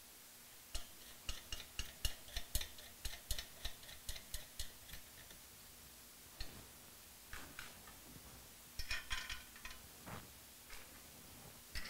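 Steel nuts and washers clicking and clinking on cylinder-head studs as they are threaded on by hand. There are quick light ticks for the first few seconds, then scattered clinks, with a brief ringing jingle of metal about three quarters of the way through.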